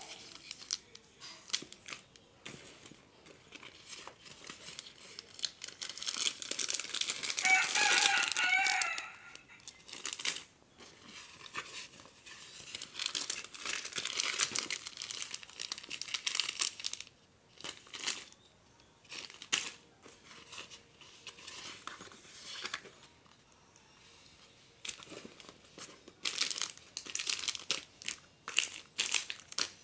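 Plastic snack and candy wrappers crinkling and rustling as they are handled and taken out of a nylon drawstring bag, in short irregular spells with pauses between. A brief high wavering call sounds about eight seconds in, over the loudest stretch of rustling.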